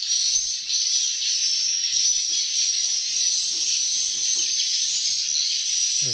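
Dense, steady high-pitched twittering of many edible-nest swiftlets in a swiftlet house, with a faint rustle of the phone being handled.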